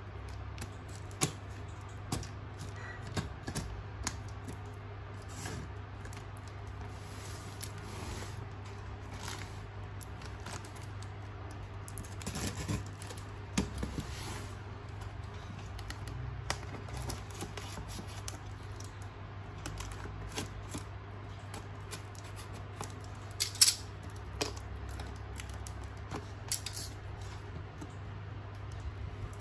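Scissors snipping and scraping at the packaging on a cardboard box, with scattered sharp clicks and crinkles as the box is handled; the loudest snips come about three quarters of the way through. A steady low hum runs underneath.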